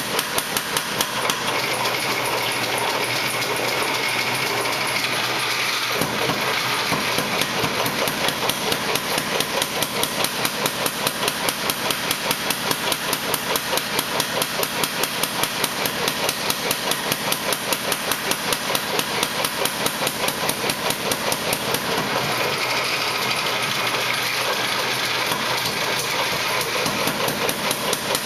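Hammer blows on steel while forging a spearhead: a fast, even run of strikes, about four a second, that keeps going without a break.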